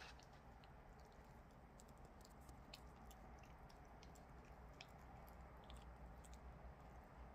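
A dog chewing a chicken sashimi treat: faint, irregular clicks and smacks of its teeth and mouth.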